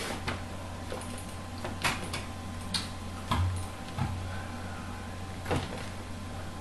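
Two kittens scuffling on a wire-mesh shelf cart: several short knocks and light rattles at irregular intervals, over a steady low hum.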